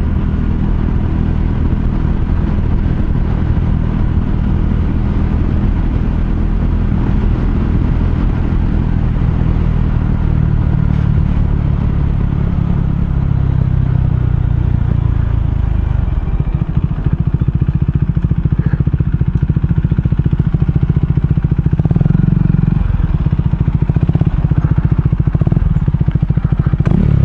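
Motorcycle engine running as the bike rides along. About two-thirds of the way in it drops to a rapid, even pulsing idle as the bike slows and stops.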